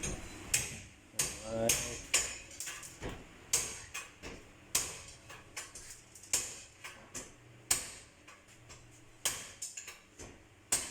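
Irregular sharp metallic clinks and knocks, roughly two a second, of hand tools and metal parts being handled.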